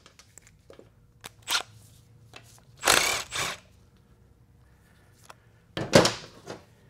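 Short clanks and scrapes of hand tools and metal parts on a steel workbench during a transfer case teardown. The loudest clatter comes about three seconds in and another near the end.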